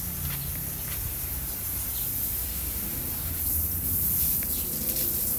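Steady high hiss of outdoor ambience with a low rumble of wind on the microphone, and a few faint chirps.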